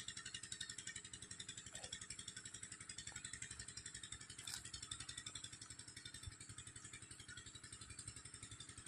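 A small engine running steadily and faintly, with a fast even beat of about eight pulses a second. A single short knock about four and a half seconds in.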